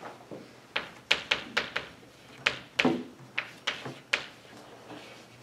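Chalk writing on a blackboard: a quick, irregular run of sharp taps and short scratches as the chalk strikes and drags across the board, stopping a little after four seconds in.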